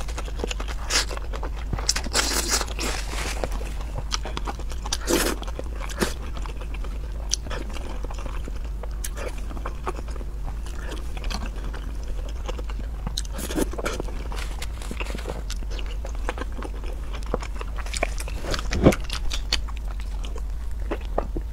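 Close-miked eating of spicy crayfish: biting, chewing and crunching of the shells, with many sharp crunches and clicks, the loudest a little before the end. A steady low hum lies underneath.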